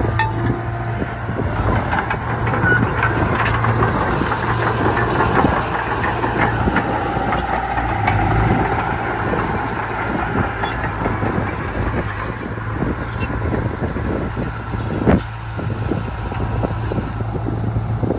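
Heavy diesel earthmoving machinery running steadily, with repeated metallic clanks and squeaks and one sharp knock about fifteen seconds in.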